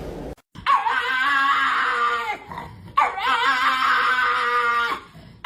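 A dog giving two long, drawn-out vocal calls of about two seconds each, each wavering at the start and then held, with a third beginning near the end.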